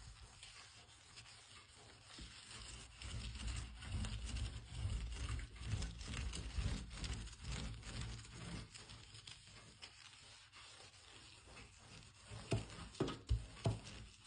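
Household cleaning sounds: rubbing and scrubbing on a surface with scattered light taps, louder between about three and eight seconds in, and a few sharper knocks near the end.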